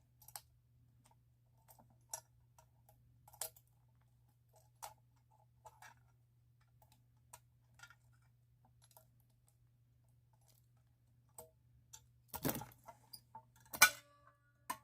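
Scattered light clicks and taps from handling a fire alarm pull station, then two louder knocks about two seconds before the end.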